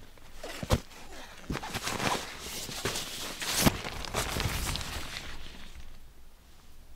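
Nylon tent fabric rustling and scraping as someone shifts about and crawls out through the tent door, with a few sharp knocks among the rustles. It dies down about a second before the end.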